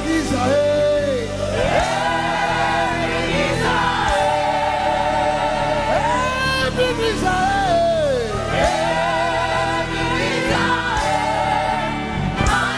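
Live gospel praise music: singers and a choir holding long notes with vibrato over a band.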